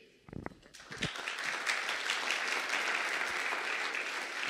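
Audience applauding, starting about a second in and running on steadily.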